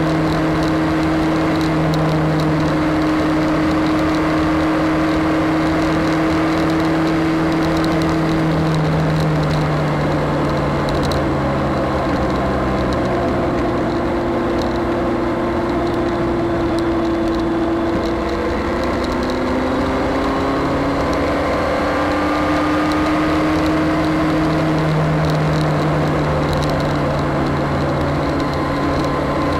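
BMW K1200S motorcycle's inline four-cylinder engine running under way at a steady cruise, its pitch easing down about ten seconds in and climbing again from about eighteen seconds, over a constant rush of wind and road noise.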